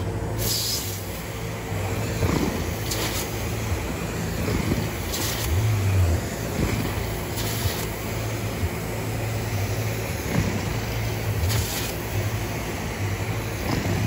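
Carpet-cleaning extraction wand drawn across commercial carpet, with the steady rush of suction and a low machine hum. A hiss swells every two to three seconds with each stroke of the wand.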